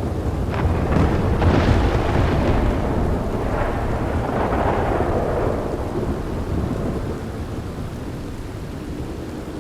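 Thunder rolling over steady rain, with a few sharp crackles in the first two seconds, then a long rumble that slowly dies away toward the end.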